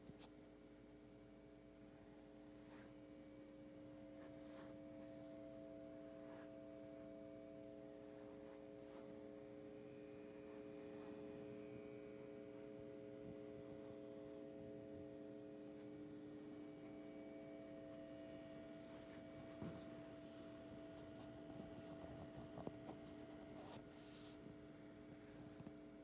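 Optoma UHD65 DLP projector's spinning colour wheel giving a faint, steady hum of several held tones.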